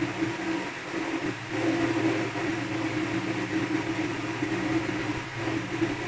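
A steady background hum with a hiss, wavering slightly in loudness.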